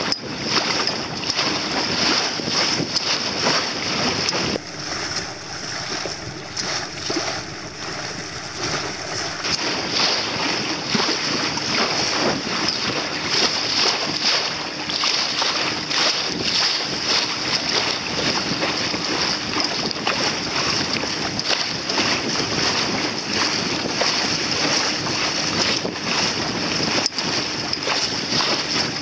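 Wind buffeting the microphone over the rush of choppy sea water against a small sailboat's hull under sail.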